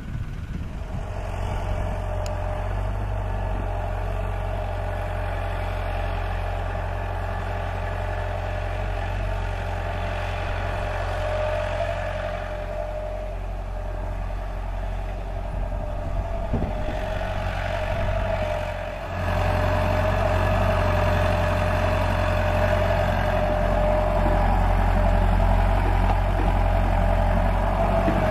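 Diesel engines of a working excavator and an idling dump truck running steadily, a low hum with a steady whine above it. The sound steps up in loudness about two-thirds of the way in.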